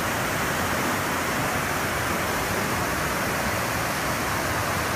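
Steady rush of the Mahanadi river in flood, its turbulent water churning and foaming below the barrage.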